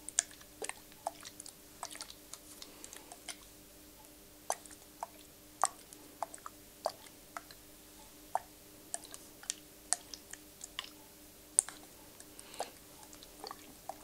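Scattered, irregular sharp clicks and taps close to the microphone, a few of them much louder than the rest, over a faint steady hum.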